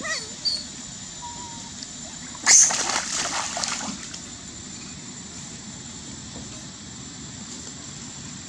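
A monkey splashes in shallow stream water. There is one sudden loud splash about two and a half seconds in, then a second and a half of splashing and sloshing that dies away.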